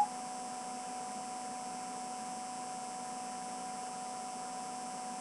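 Steady electrical hum with a few fixed tones and a faint high whine, unchanging throughout.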